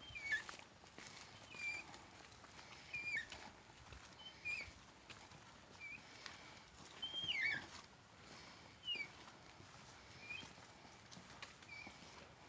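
Ceramic artificial hip joint squeaking: about nine short, high squeaks at a regular pace, roughly one every second and a half, the one about seven seconds in longer and louder. The squeak marks a failing implant that the owner says needs a part replaced.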